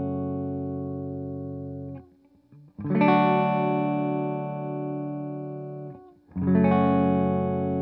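Electric guitar chords from a Gibson Les Paul through a Fender Deluxe Reverb reissue amp, run through the DC-Comp compressor pedal with its clean blend turned all the way up, so there is no compression and the pedal acts as a clean booster. A held chord rings and is cut off about two seconds in, a second chord is struck about three seconds in and left to ring, and a third is struck just past six seconds.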